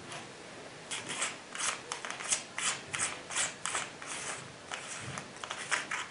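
Weaver Kaspa 1-4x24mm scope's windage or elevation turret being turned by hand, clicking through its detents about three times a second; the clicking starts about a second in.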